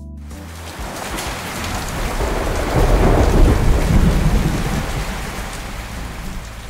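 Thunderstorm sound effect: thunder rumbling over heavy rain. It swells to a peak midway and then fades away.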